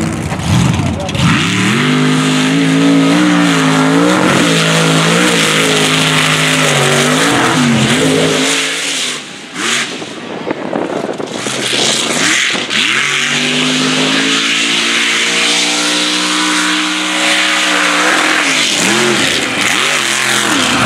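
Mega truck engines revving hard as the trucks race a dirt course, the pitch climbing and falling with the throttle. About halfway there is a short dip and a jumble of noise, then another truck's engine climbs steadily under acceleration.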